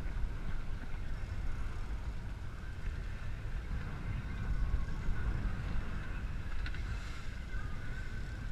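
Steady low rumble of wind and sea noise on a small boat at sea, with a faint click near the end.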